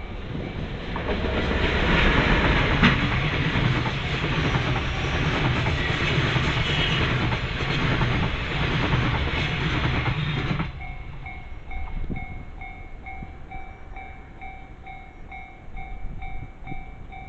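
A train passing a Japanese level crossing while the crossing's warning bell rings, a two-pitch ding repeating about twice a second. The train noise swells about a second in and cuts off suddenly near ten seconds in, leaving the bell ringing on its own.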